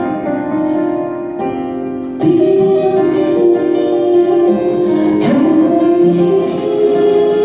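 Live concert music recorded from the audience: sustained piano and keyboard chords, then about two seconds in the music swells louder and a woman's singing voice comes in over the keyboards.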